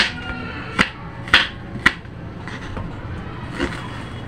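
Kitchen knife slicing through a red onion and knocking on a wooden cutting board: sharp knocks, four in the first two seconds and one more later.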